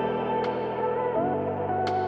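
Background music: ambient sustained chords that shift about a second in, with two light percussive ticks.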